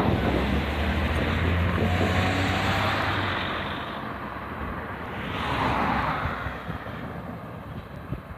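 Road traffic: a vehicle's engine holding a low, steady hum for about the first three seconds, then a car swelling past about five to six seconds in and fading away.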